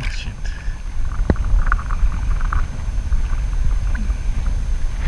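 Wind rumbling on the microphone over the wash of small waves around a kayak, with a single sharp click about a second in from the angler handling his catch.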